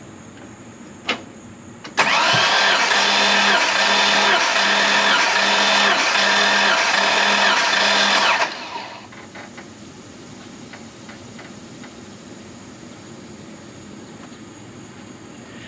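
Starter motor cranking a newly rebuilt Jeep straight-six for about six seconds without it firing, during a compression test with a gauge in one spark plug hole and the throttle held open. It has an even pulse about every two-thirds of a second as the tested cylinder comes up on compression, and the cranking stops abruptly. A single click comes about a second before the cranking begins.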